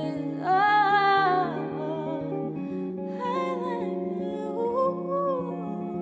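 Solo female vocal singing three long, held phrases without clear words over sustained electric guitar chords, a live performance.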